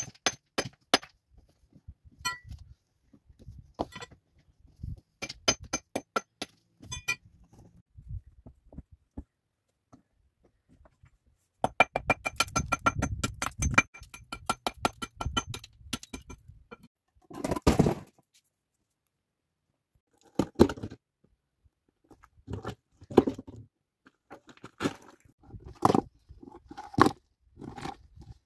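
Stones knocking and scraping as they are set in place, with a steel tool clinking against rock. About twelve seconds in comes a quick run of ringing metallic clinks lasting a few seconds, followed by a scrape and scattered thuds of moved stones.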